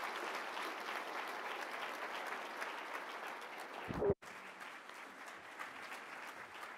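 Audience applauding a welcome, a dense patter of many hands clapping. About four seconds in there is a low thump and the sound cuts out for an instant, then the applause carries on more quietly and dies away.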